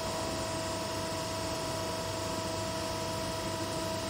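Busbar punching machine running idle between strokes: a steady, even hum with a couple of steady tones over it and no punching blows.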